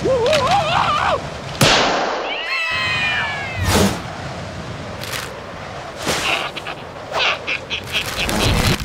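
Wordless cartoon character voice giving a high, wavering squeal for about a second. It is followed by cartoon sound effects: sharp swishes and hits, a falling glide of several tones, and a quick run of clicks near the end.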